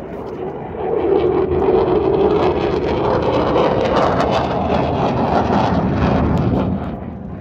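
A Blue Angels F/A-18 fighter jet making a low pass. Its loud jet-engine roar swells about a second in, holds for several seconds, then eases off near the end.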